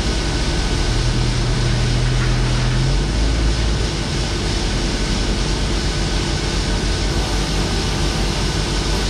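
Diesel engine of a silo tanker truck pulling away, its low hum dropping out about three seconds in, over a steady loud rushing noise.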